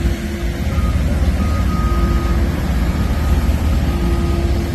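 Steady, loud low rumble of a large vehicle running, with faint high tones that come and go.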